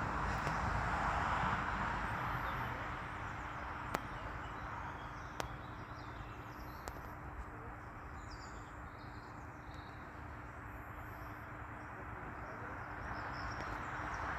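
Outdoor background noise: a steady rushing that is louder at the start, eases off in the middle and swells again near the end, with faint bird chirps and a few light clicks.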